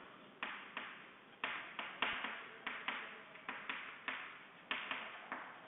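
Chalk writing on a chalkboard: a quick, uneven run of short taps and scratches, about three strokes a second.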